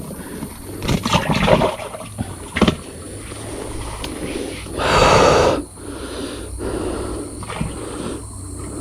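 Scattered rustling and handling noises, with one louder rushing burst lasting under a second about five seconds in, over a steady high-pitched insect drone.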